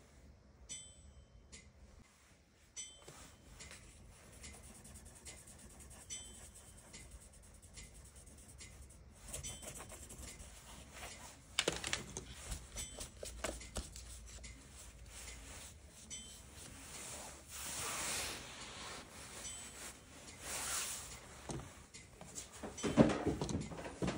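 Handling of drawing materials over a sketchbook: a pencil scratching on the paper, with scattered light clicks and taps. There are longer rustling, rubbing sounds in the second half and one sharp knock shortly before the end.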